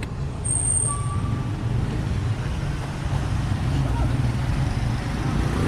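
Steady low rumble of motor-vehicle engines, like passing road traffic, with faint voices in the background.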